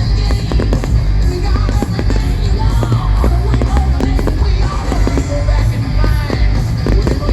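Loud rock music with singing, dense with sharp hits.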